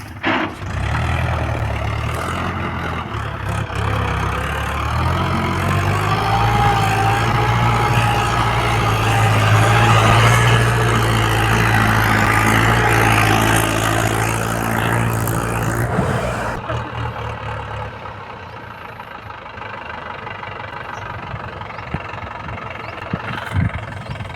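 Diesel engine working up to higher revs under load, with a wavering whine over the engine note, then dropping back to a quieter idle about sixteen seconds in.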